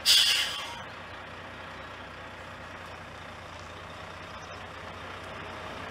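Semi-trailer truck: a short loud hiss of air at the very start, fading within a second, like an air brake release, then a steady low rumble with a hiss over it.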